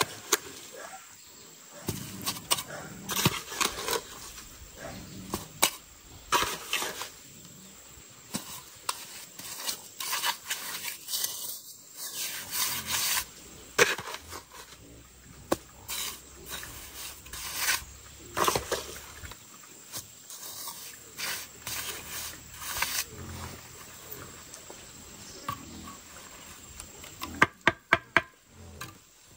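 A steel trowel scraping and slapping wet mortar along the floor of a dirt trench. Near the end come several quick sharp knocks as the trowel handle taps a brick down into the mortar bed.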